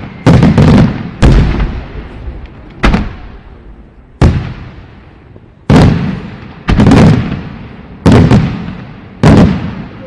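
Fireworks shells bursting in the air: about eight loud booms in quick succession, each fading away over a second or so before the next.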